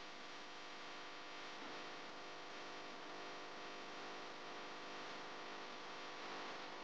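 A faint, steady hum with hiss.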